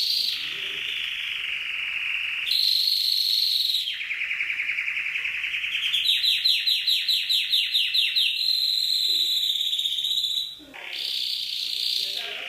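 Domestic canary singing a continuous song of rolls and trills: fast buzzy trills, then a run of quick downward-sweeping notes about five a second, then a long held high note that breaks off briefly near the end before the song resumes.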